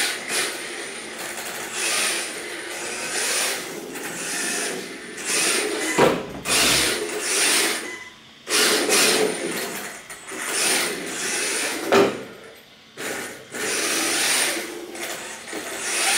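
Brushless 1/10 RC drift car driven in short bursts of throttle on a tiled floor: the motor and the hard drift tyres sliding on tile come and go in repeated surges, with two sharp knocks, about six and twelve seconds in.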